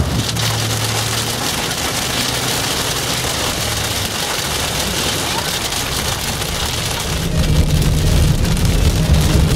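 Hailstones pelting a Mercedes-Benz SL65 AMG's windscreen and bodywork, heard from inside the cabin as a dense steady patter of small hits. The car's twin-turbo V12 hums low underneath, rising a little about seven seconds in.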